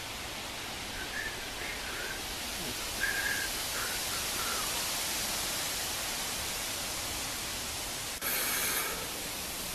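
Steady outdoor hiss of wind and ambience, with a few faint short bird chirps in the first half and a brief louder burst of noise near the end.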